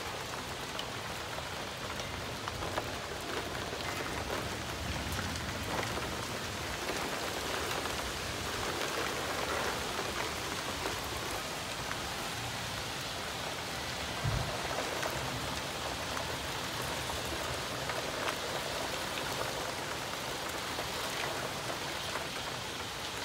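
Heavy rain pouring steadily, with a single low thump about fourteen seconds in.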